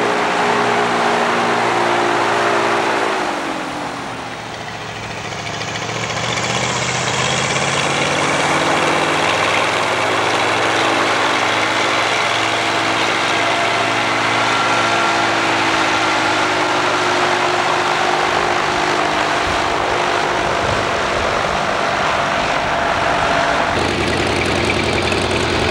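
Engine of a homemade open-frame parade vehicle running as it drives by. A few seconds in its pitch falls and it fades, then it picks up again and runs steadily.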